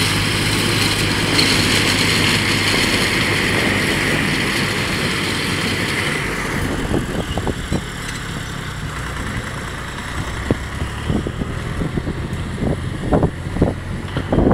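Tractor engine running steadily as it pulls a corn picker through standing maize, with the picker's mechanical hiss over the engine hum. About six seconds in, the machine noise drops away and wind buffets the microphone in irregular gusts.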